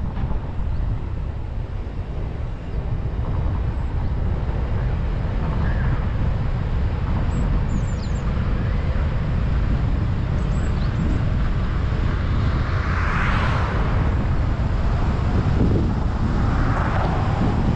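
Car driving on a highway: steady low road and wind rumble, with a rush that swells and fades twice in the second half.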